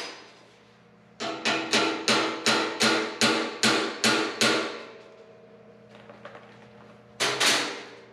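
A hammer striking the sheet-metal grill of a Farmall M tractor. There are about ten quick, evenly spaced blows, roughly three a second, each with a short metallic ring. A shorter, louder burst of metal noise comes near the end.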